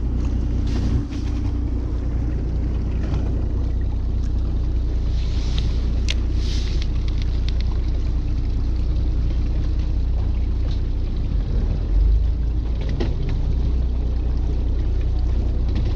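Fishing boat's engine idling, a steady low hum, with a few light clicks and knocks about six seconds in and again near the end.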